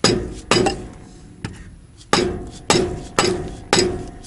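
A hammer strikes a wooden block held against the grease cap of a Dana 44 front axle hub, driving off the stuck cap. There are six sharp blows in an uneven rhythm, with a pause of more than a second after the second blow, and each blow is followed by a brief metallic ring from the hub.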